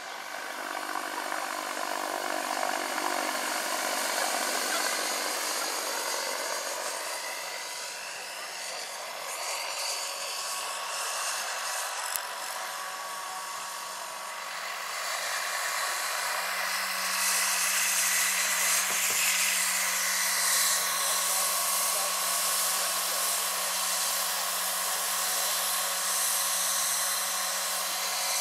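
Vario SA-341/342 Gazelle large electric scale model helicopter flying: steady whine of its electric drive and rotors over a rushing hiss. It gets louder about halfway through, and a steady low hum joins the whine.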